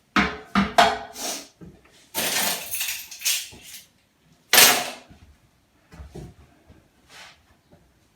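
Sharp knocks and clatters as a skirting board and tools are handled and set down: a quick run of knocks, a rough scraping stretch of about a second and a half, then one loud knock about halfway through.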